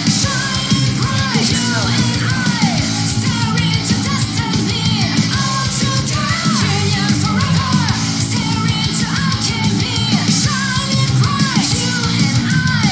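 Female-fronted traditional heavy metal song playing: a woman singing powerfully over distorted electric guitars, bass and drums.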